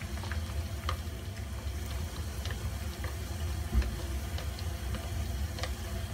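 Cashew nuts deep-frying in oil over low heat: a steady bubbling sizzle with scattered small pops, as wooden chopsticks stir them. A single dull thump comes a little before four seconds in.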